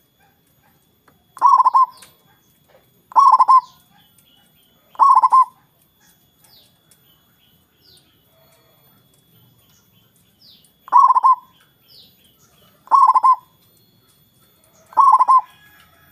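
Zebra dove (perkutut) cooing: six loud, rapidly pulsed coos, each about half a second long, in two sets of three about two seconds apart, with a pause of about five seconds between the sets. Faint short high chirps come in the pause.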